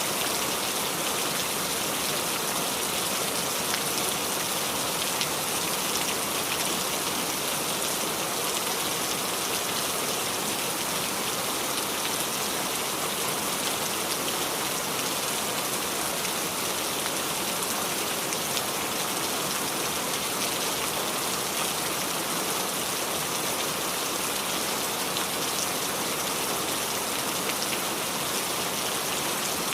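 Steady rain falling and dripping on the leaves of a small tree: an even hiss of rainfall dotted with many fine drop ticks, unchanging throughout.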